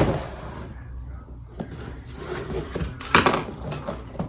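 Household handling noises: a sharp knock as something is set down or shut right at the start, then a clatter about three seconds in.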